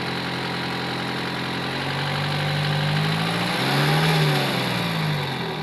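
Isuzu D-Max engine idling, then gently revved once about halfway through, rising and falling back to idle. The engine has a misfire that is being listened for.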